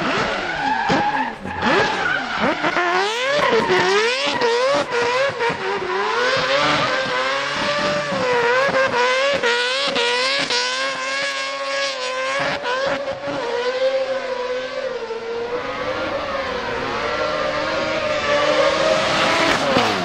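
Naturally aspirated, peripheral-ported 26B four-rotor Wankel engine of a Mazda RX-7 FD3S drift car, revving hard through a drift. Its pitch swings up and down again and again, and is held high for a few seconds near the middle. Rear tyres skid under the engine note.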